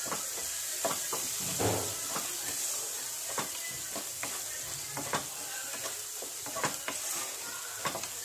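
Masala of fried onion, ginger-garlic paste and ground spices sizzling steadily in a pan while a spatula stirs and scrapes it, knocking against the pan every half second or so.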